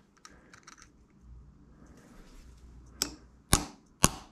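A hammer tapping a small homemade staking tool against a spindle's bearing lock nut, raising metal to lock the nut in place of a centre-punch mark. There are three sharp metallic taps about half a second apart in the last second and a half, the first lighter, after faint handling clicks.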